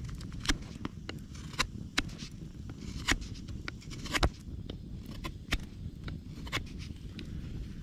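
Knife blade shaving and carving a stick of dry, dense dead wood flat, with sharp cutting strokes at irregular intervals of roughly a second.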